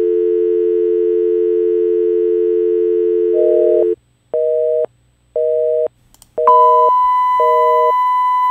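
North American telephone dial tone, a steady two-note tone, for about four seconds, then a busy signal beeping on and off about once a second. About six and a half seconds in, a steady, higher test tone of the kind played with colour bars comes in under the last beeps.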